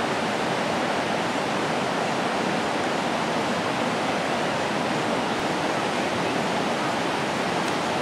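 Steady rush of fast-flowing river water running over rapids, an even noise that holds constant throughout.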